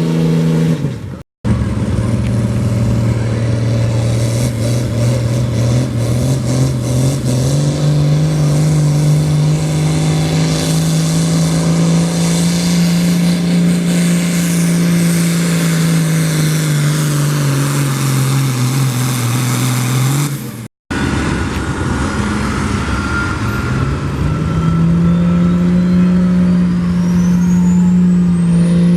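Heavily modified diesel pickup engine running hard at high, steady revs while pulling the sled. Near the end a turbocharger whistle rises steeply in pitch. The sound breaks off briefly twice.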